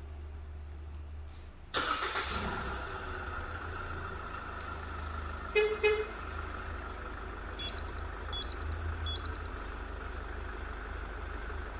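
Remote-start car alarm system on a SsangYong Rexton Khan pickup sounding two short horn toots in quick succession, followed a couple of seconds later by three quick rising electronic chirps, over the vehicle's running engine. About two seconds in, the running noise jumps up suddenly and stays louder, with a steady tone.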